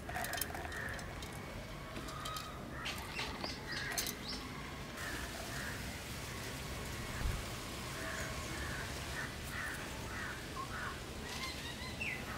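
Birds chirping in short, scattered calls over a steady background hiss, with a few sharp clicks near the start and again a few seconds in.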